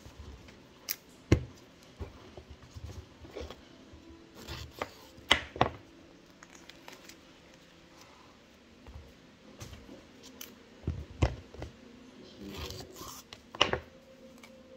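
Saba bananas being peeled by hand: the peel tearing and rustling, with scattered sharp clicks and knocks from handling, the loudest about a second in, around five seconds in and near the end.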